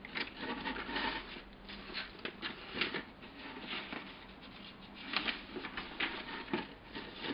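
Paper pages of a model kit's instruction booklet being handled and turned, rustling in short irregular strokes, with a few louder page flaps.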